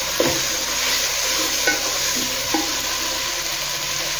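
Onion-tomato masala sizzling in a nonstick frying pan as a wooden spatula stirs it, with a few light knocks of the spatula against the pan.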